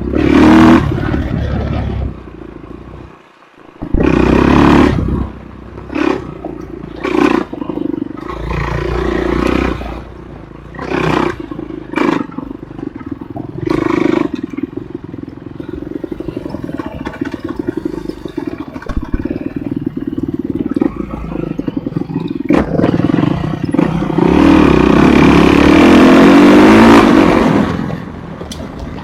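Enduro motorcycle engine running under repeated bursts of throttle, about a dozen short revs in the first half, then one long, loud pull lasting several seconds near the end.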